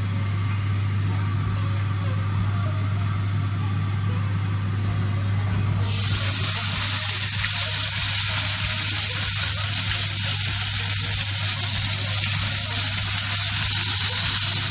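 Hot oil sizzling in a stainless steel frying pan, rising sharply about six seconds in as a marinated pork neck steak is laid in to sear, then sizzling steadily as a second steak goes in. A steady low hum runs underneath.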